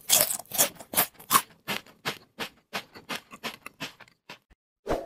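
A run of short, crisp crunching clicks, about three a second, growing sparser and fainter, then a single duller thud near the end.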